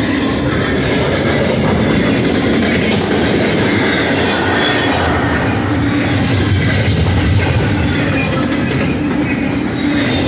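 Double-stack intermodal freight train's well cars passing close at speed: a steady, loud rumble of steel wheels running on the rails.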